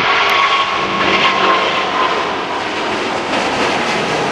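Boeing 777-200 jet airliner's twin turbofan engines running: a steady rushing noise with a faint high whine, a little louder in the first couple of seconds.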